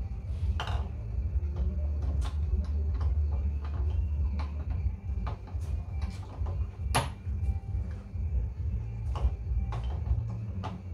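Scattered light clicks and taps of a Hellcat oil pump being handled and fitted onto the crankshaft snout of a Hemi V8 block, the sharpest about seven seconds in, over a steady low hum.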